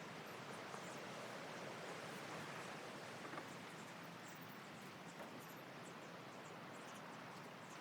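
Faint steady hiss with a few light ticks.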